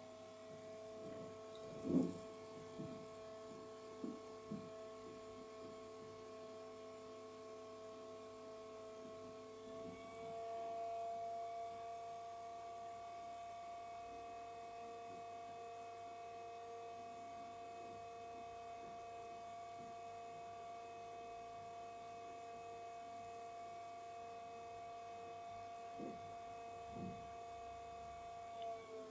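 Enermax LIQMAX 120S all-in-one liquid cooler pump running with a faint, steady electric whine of several tones. The whine steps up slightly in pitch about a third of the way in as its supply voltage is raised toward 12 V, and drops back right at the end as the voltage is lowered. A few soft clicks are heard along the way.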